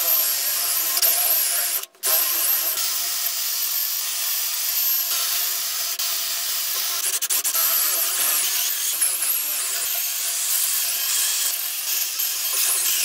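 Cordless drill with a Forstner bit boring into a dry oak root: a steady motor whine over the rasp of the bit cutting wood. It stops briefly about two seconds in.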